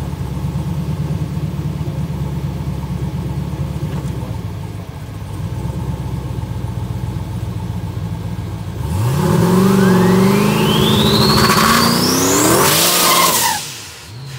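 Twin-turbo Ford Mustang V8 idling steadily, then about nine seconds in it revs hard for a burnout: the rear tyres spin and smoke while a turbo whistle climbs steadily in pitch. The revs drop off suddenly near the end.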